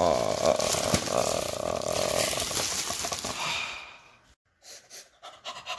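Cardboard packaging of a PC power supply being opened: a steady rubbing, scraping sound for about four seconds that stops abruptly, followed by a few faint handling clicks.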